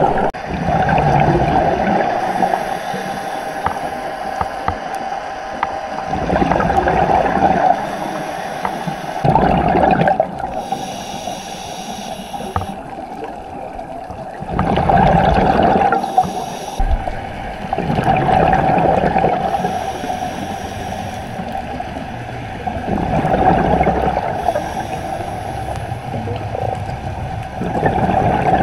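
Scuba diver breathing through a regulator underwater: a bubbling exhale surges every four to five seconds, with quieter stretches between.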